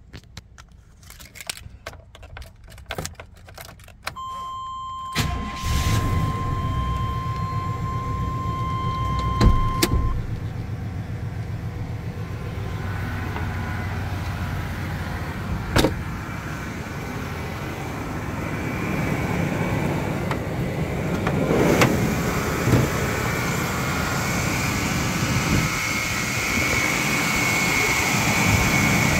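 1998 Chevrolet Silverado engine cold-started after sitting about a week: it catches about five seconds in and settles into a steady idle. A steady chime tone sounds for several seconds as it starts, and a few sharp clicks are heard. Near the end the engine sound grows louder, with a steady whine over it.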